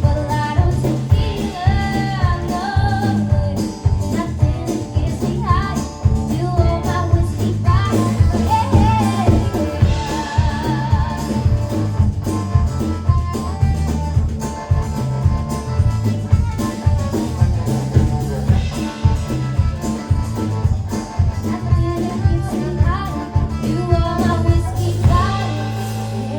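Live country-styled pop band with drums, bass and guitar, and a wavering lead melody over a steady beat. Near the end the drums stop and a final chord rings out and fades.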